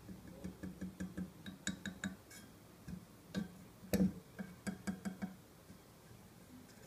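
Fingers tapping on a black headphone stand: quick light knocks at about five a second, in short runs, with one louder knock about four seconds in.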